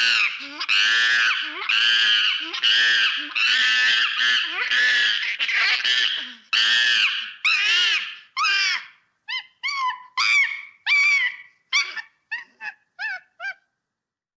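Monkey calling: a rapid run of loud, high calls that arch up and down in pitch. About nine seconds in, these break into shorter separate calls, which stop shortly before the end.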